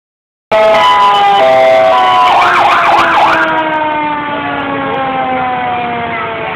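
Fire truck sirens: a loud siren tone sliding slowly and steadily down in pitch, with a short fast-warbling siren about two seconds in.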